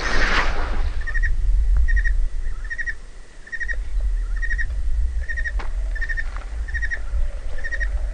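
A fishing rod cast: a whoosh in the first second as the rod swings and the loaded groundbait basket flies out. Steady low wind rumble on the microphone follows, under a short chirp that repeats about every two-thirds of a second.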